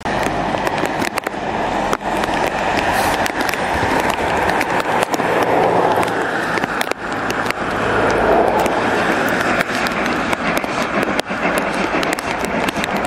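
GWR 57xx pannier tank 7752 approaching under steam with its train: a loud, steady rush of exhaust and running noise, broken by many sharp irregular clicks.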